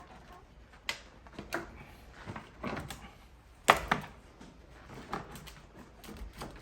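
Knocks and clunks of a car battery being set down and shifted into its tray under the hood, with the two loudest knocks close together about halfway through.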